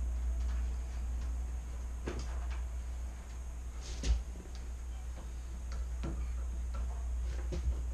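Scattered light clicks and taps of parts and tools being handled during assembly, with one louder knock about four seconds in, over a steady low hum.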